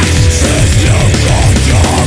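Loud heavy metal band recording, dense and full, driven by rapid repeated low beats.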